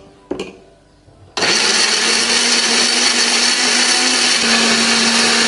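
Countertop electric blender switched on about a second and a half in, then running steadily as it grinds shallots, garlic, red chilies and spices with a little water into a paste.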